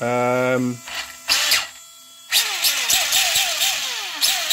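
Brushless 13.5-turn motor in a Tamiya TT-02 chassis, wheels spinning free on a stand, revved in quick repeated throttle blips from about halfway: a whine that drops in pitch after each blip, over a steady rush of drivetrain noise.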